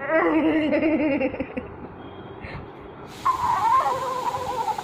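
Giggling laughter, then about three seconds in a high, squeaky voice that glides up and down, from a talking-cat phone app.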